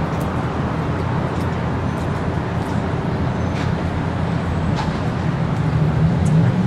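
Steady city street traffic: vehicle engines giving a low hum under a wash of road noise, with a few faint clicks.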